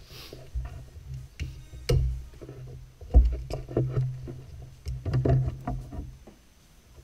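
Plastic clicks and knocks from a car's battery-top fuse box being unclipped from the battery terminal and lifted off by hand, with a heavier thump about three seconds in. A steady low hum runs underneath.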